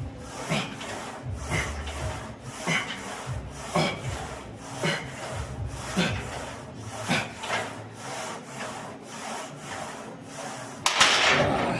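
Rhythmic rasping strokes, about one a second, from a person working through a set of exercise repetitions, with a longer, louder stroke near the end.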